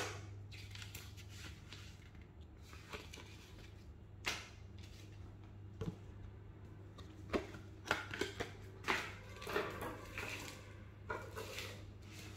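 Handling sounds of a phone unboxing: rustling and scraping of packaging with a sharp knock at the start and a cluster of clicks and taps in the second half, over a low steady hum.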